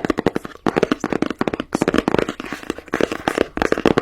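Hands unboxing and assembling a fidget toy, making a quick, steady run of small clicks and taps.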